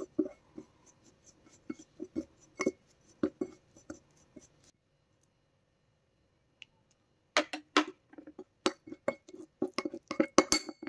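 Steel spoon clinking and scraping against a ceramic bowl while stirring a face pack of rice powder, gram flour, honey and milk. The clinks stop for a couple of seconds around the middle, then come back quicker and louder.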